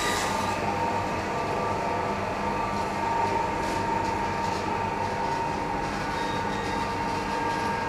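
Butcher's meat-cutting band saw running steadily through a leg of meat, a constant mechanical drone with a high steady whine.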